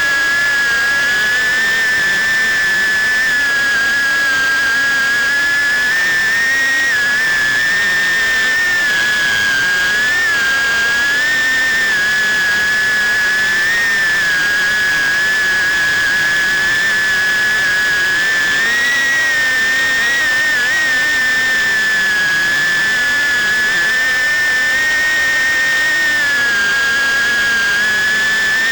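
FPV quadcopter's brushless motors and propellers running with a steady high-pitched whine, its pitch wavering slightly up and down with throttle.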